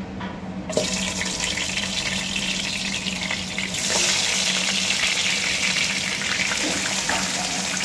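Fish heads sizzling in hot mustard oil in a non-stick kadai. The sizzle starts suddenly about a second in, as the first head hits the oil, and grows louder about halfway through as more heads go in.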